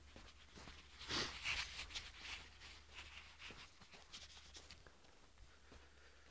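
Faint, irregular crunching of footsteps on packed snow, loudest a second or two in, over a steady low hum.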